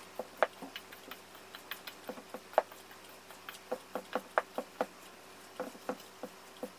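Hands mixing finger millet and wheat grain together in a bowl: scattered, irregular light clicks and taps, several a second.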